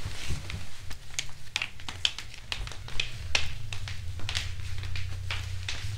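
Flip-flop footsteps slapping on a tile floor: irregular taps as two people walk slowly side by side, over a low steady hum.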